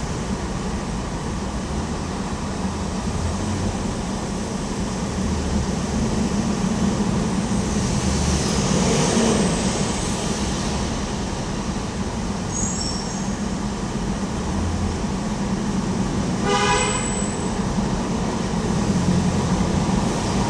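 Steady road traffic on the Queensboro Bridge, a constant rumble and hum with vehicles passing. A short vehicle horn toot sounds about three-quarters of the way through.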